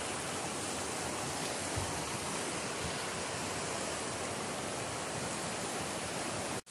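Steady rush of a fast mountain stream pouring over boulders, which breaks off abruptly near the end.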